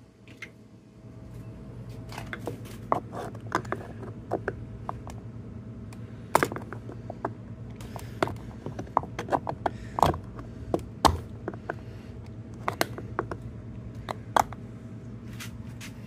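Irregular sharp clicks and light scraping of a thin metal pick working in the plastic handle recess of a Ford F-150 interior door panel, over a steady low hum.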